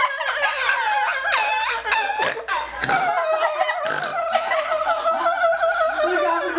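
High-pitched laughter: one person giggling in a long, wavering run that goes on without a break.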